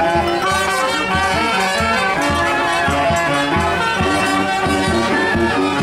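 Street brass band playing: trumpets, trombones, saxophone and tuba over a steady bass-drum beat.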